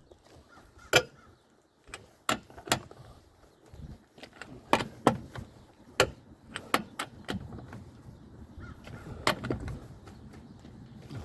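A series of irregular clicks and knocks, about a dozen over several seconds, with a faint low rumble in between, typical of parts and tools being handled on a car.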